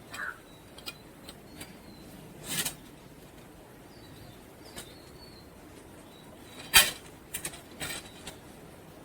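Scattered sharp knocks and cracks, one much louder than the rest about two-thirds of the way through, with a few faint bird chirps.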